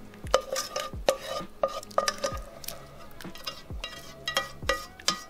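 Black plastic spatula scraping thick chicken Alfredo sauce out of a stainless-steel skillet, knocking against the pan again and again so that the metal rings briefly after each stroke.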